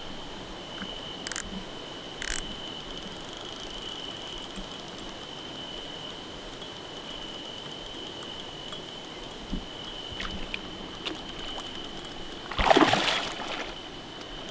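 A hooked carp thrashing and splashing at the surface close to the bank near the end, the loudest sound, while it is played on a carp rod and reel. Behind it a steady high-pitched insect trill, with a few sharp clicks and a stretch of fast light ticking from the fishing tackle.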